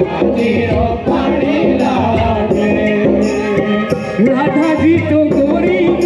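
Live Hindi devotional bhajan music for a kirtan: a voice singing over a steady percussion beat.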